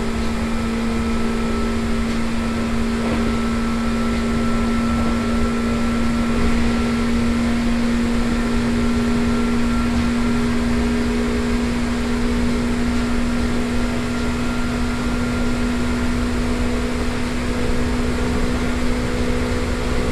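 Seibu 2000 series field-chopper electric train running at a steady speed, heard from inside the passenger car. An even running noise carries a steady hum that holds one pitch, with the air conditioning running at full.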